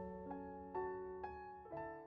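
Slow, gentle piano music: single notes struck about every half second and left ringing, growing softer toward the end.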